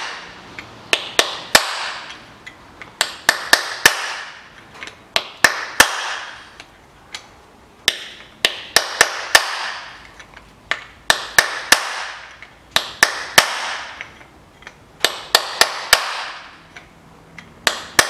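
Hammer striking a pin punch to drive the pins out of the shift forks of a Chevrolet Lanos five-speed manual gearbox: sharp metallic taps in quick groups of three to five, with short pauses between groups, each group ringing briefly.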